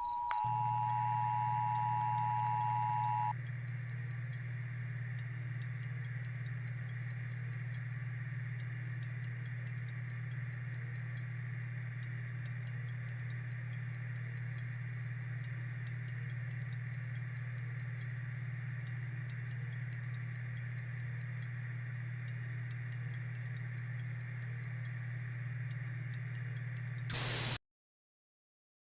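The end of an Emergency Alert System two-tone attention signal, a steady dual-pitched tone that stops about three seconds in. After it comes a steady low hum with hiss, ending near the end in a short burst of noise that cuts off abruptly.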